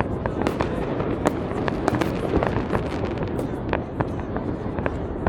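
New Year's fireworks going off in rapid succession: many sharp bangs and crackles, several a second, over a continuous rumble of distant explosions.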